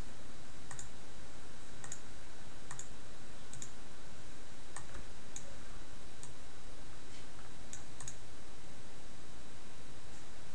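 Computer mouse clicking about a dozen times at irregular intervals, over a steady hiss.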